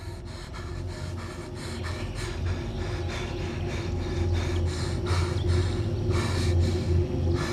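A man breathing hard in short gasping breaths, two or three a second, over a low steady drone that slowly grows louder.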